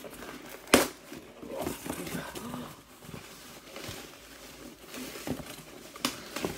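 Cardboard parcel being opened by hand: box flaps and packing rustling and crinkling, with a sharp knock about a second in and another near the end.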